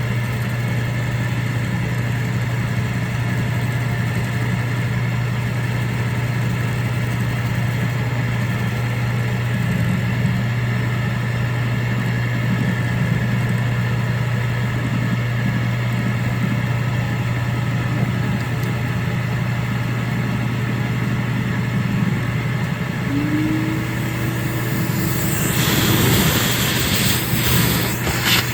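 Drill press running steadily with a 5/16-inch end mill, a constant motor hum, while it takes a light final cutting pass in a magazine lid. Near the end a louder, higher hiss comes in over the hum.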